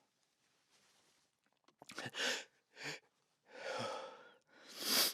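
A man's heavy breathing in a dry, sound-treated room: a few mouth clicks, then a run of sharp breaths, sighs and sniffs, the last near the end the loudest. The breaths and sniffs go with a tickling nose in the run-up to a sneeze.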